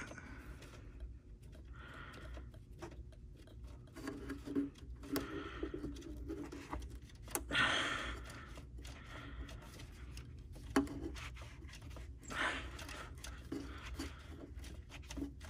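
Small clicks, scrapes and rustles of a hand working a rubber hose off its fitting on the engine, with louder rustling about eight seconds and twelve seconds in, over a low steady hum.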